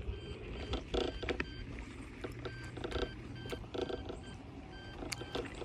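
A person taking short, heavy breaths through an open mouth, several sharp breaths about a second apart, trying to cool a mouth burning from ghost pepper, over wind rumble on the microphone.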